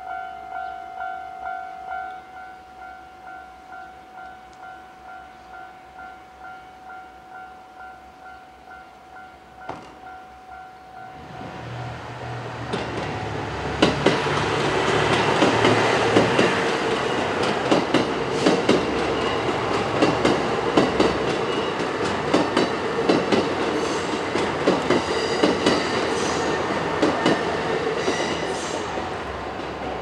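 Japanese level-crossing warning bell ringing about twice a second, fading away. Then a KiHa 189 series diesel limited express comes up to the crossing about a third of the way in and passes over it: its engines, then a long run of wheel clatter over the rail joints, which is the loudest part.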